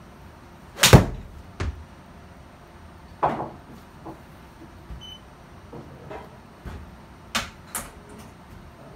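A golf iron striking a ball off an artificial-turf hitting mat: one sharp crack of impact about a second in, then a smaller knock. Lighter knocks and clicks follow later, two of them close together near the end.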